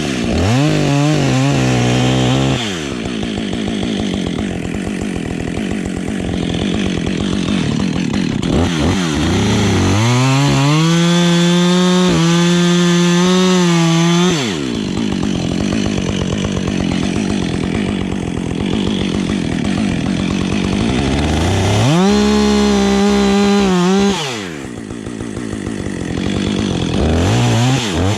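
Husqvarna 555 two-stroke chainsaw cutting wood. It is held at high revs for a few seconds at a time, three times, and drops back to lower, rougher running in between. It picks up again near the end.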